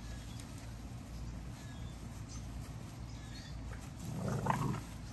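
Steady low outdoor background with a few faint, short high chirps. About four seconds in comes a brief, louder animal vocalisation.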